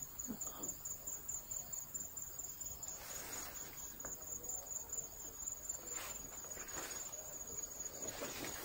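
Insects trilling steadily in a high, rapidly pulsing tone, with soft rustling of leaves and vines a few times, more often near the end.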